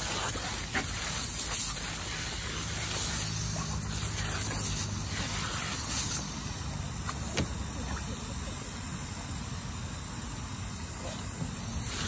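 Water from a garden hose spraying and splashing onto a boxer dog and into a plastic kiddie pool: a steady hiss with a few short clicks, over a low rumble.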